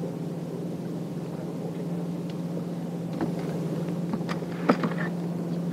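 Electric bow-mounted trolling motor humming steadily. Several sharp knocks in the second half, the loudest near the end, as a bass is swung aboard and handled on the deck.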